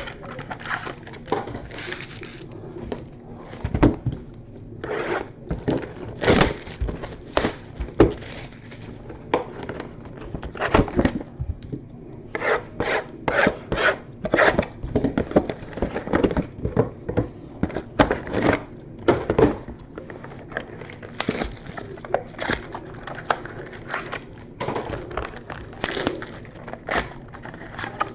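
Baseball card packs and cards being handled: irregular rustling, rubbing and scraping as packs are opened and the cards are slid and shuffled.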